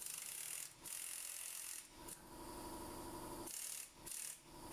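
Air impact wrench running in bursts on a truck wheel's lug nuts to take the wheel off: a hissing, rattling air-tool noise broken by short pauses about three times.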